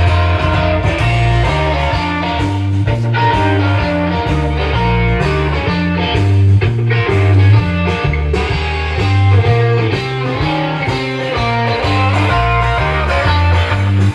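Guitar-led rock instrumental with a strong bass line, played through a home-built boombox's speakers. The music runs on without dropouts.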